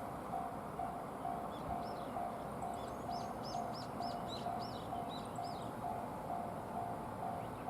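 Japanese level-crossing warning bell ringing in an even, steady pulse, about two and a half dings a second, signalling that a train is approaching. A small bird chirps a quick run of notes over it in the middle.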